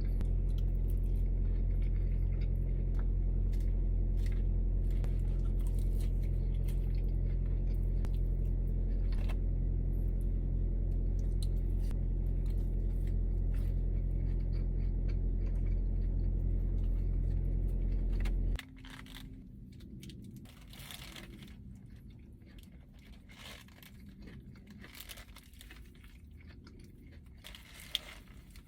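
A steady low mechanical hum made of several held tones stops abruptly about eighteen seconds in. After it come quieter crinkles and crunches of food wrapping being handled and bitten into.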